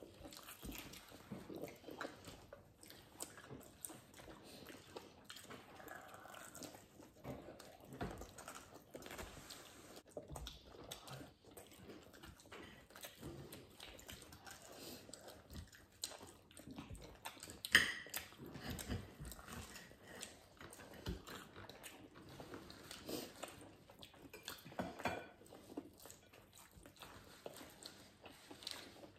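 Close-up eating sounds: several people biting into and chewing crispy breadcrumb-fried chicken and grilled ribs, with scattered small crunches and mouth noises. One sharper click stands out a little past the middle.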